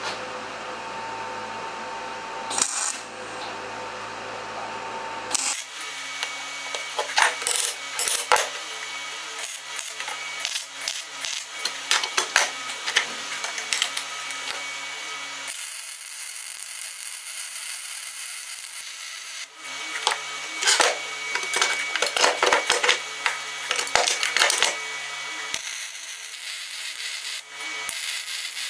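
MIG welder welding steel plate and tube: a crackling, sputtering arc in runs of several seconds, broken by short pauses. The first few seconds are a steady hum before the arc is struck.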